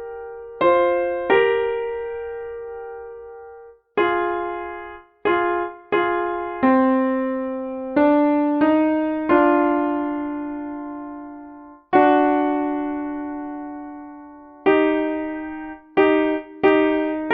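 Piano playing a slow two-voice melody: each time two notes are struck together and left to ring and fade, with a few longer held notes and short breaks between phrases.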